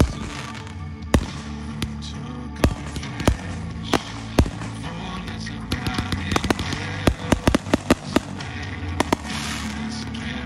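Aerial fireworks going off: single sharp bangs every second or so, then a quick run of smaller cracks about six seconds in, with steady background music underneath.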